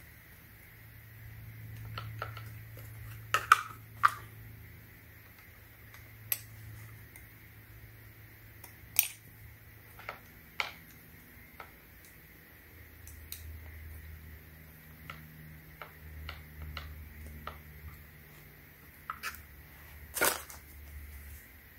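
Saw chain being fitted by hand onto the guide bar of an electric pole saw: irregular light metallic clicks and clinks as the chain links and bar are handled, a few of them louder.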